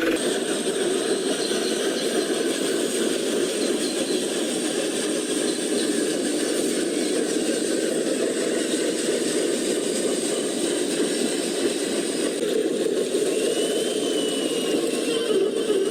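Small electric motors and plastic gearboxes of radio-controlled toy trucks whirring steadily.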